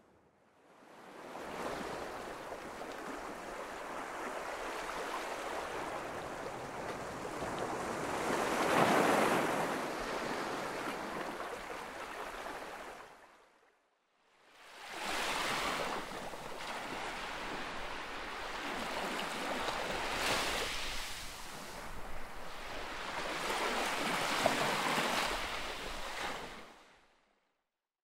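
Ocean waves washing in a steady rush that surges and eases. It fades out about halfway through, goes silent for about a second, then fades back in and surges twice more before fading out near the end.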